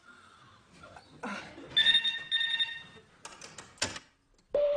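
Telephone bell ringing with the British double ring, one brr-brr about two seconds in. A few clicks follow, then a steady tone starts near the end.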